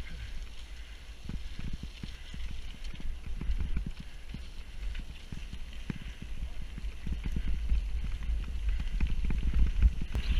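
Mountain bike rolling over a bumpy dirt forest track: a low rumble with a steady stream of small knocks and rattles, getting louder over the last few seconds.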